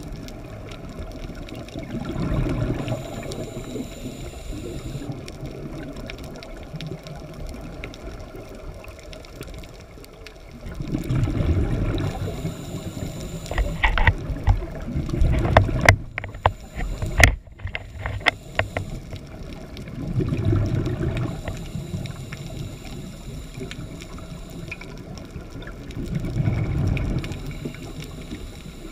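Scuba diver's breathing heard underwater: exhaled bubbles from the regulator rush past in low swells every several seconds. In the middle, a quick run of sharp clicks and knocks.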